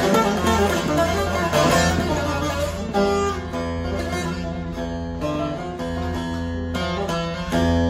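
Divan bağlama with a paduk bowl and spruce top, played solo: a quick run of plucked notes, then slower strokes that ring on from about three seconds in, with a louder strum near the end.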